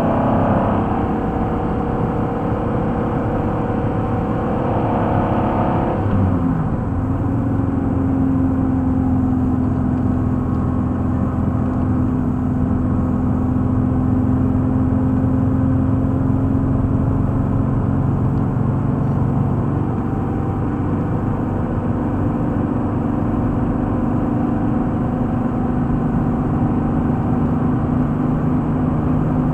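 Pontiac Fiero engine heard from inside the cabin at track speed, with road and wind noise. The revs drop sharply about six seconds in, then the engine drones at a steady pitch that drifts only slightly.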